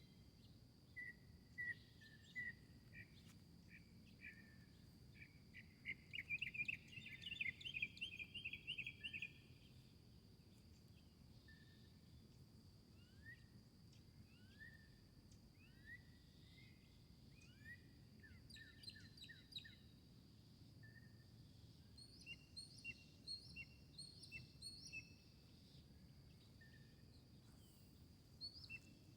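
Garden birds chirping and calling, with a fast, loud trill of repeated notes from about six to nine seconds in and another run of repeated chirps near the end. A steady high-pitched whine and a faint low rumble lie underneath.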